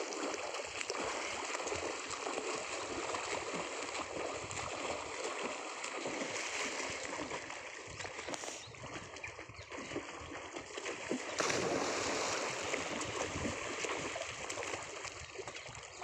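Water splashing and running steadily, growing louder for a few seconds past the middle.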